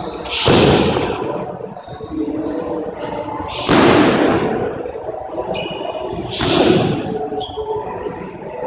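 Three kicks landing on handheld Thai kick pads, about three seconds apart, each a loud slap that echoes off the hard walls of a squash court. Sneakers squeak faintly on the wooden floor between the kicks.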